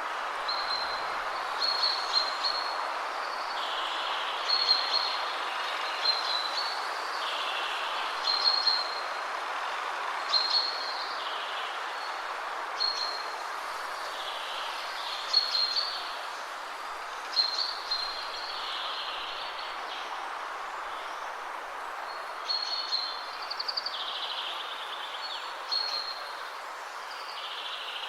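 Birds chirping in short high calls that repeat every second or two, each followed by a lower trill, over a steady rushing hiss.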